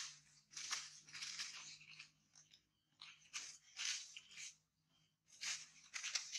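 Dry fallen leaves crunching and rustling under a macaque as it shifts and walks over the leaf litter, in three short bouts of crackling.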